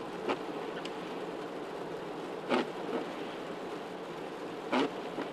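Steady road and wind noise of a vehicle driving on a snow-covered highway, with three brief swishes about two seconds apart.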